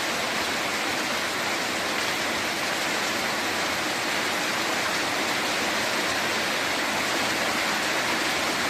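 Steady, even rushing hiss of rain falling.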